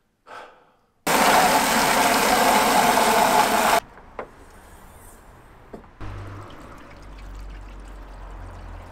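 A loud rushing noise for nearly three seconds that cuts off sharply, then a single click. After that, washer fluid is poured from a jug into a van's washer-fluid reservoir: a steady trickle over a low rumble.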